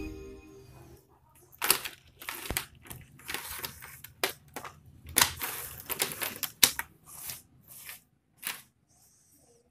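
Loose bicycle chain clinking and rattling on a wooden table as it is handled and laid out: an irregular run of sharp metallic clicks and rattles that stops about a second before the end.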